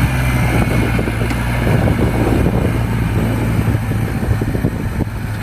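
Heavy vehicle engine running steadily with a deep low hum, set in as a sound effect for a toy bulldozer and cut off abruptly near the end.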